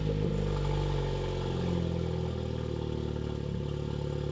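2017 Honda Civic Type R's 2.0-litre turbocharged four-cylinder engine idling steadily, just started for the first time after a Pure550 turbocharger was fitted in place of the failed original; the idle eases slightly lower in level after the first couple of seconds.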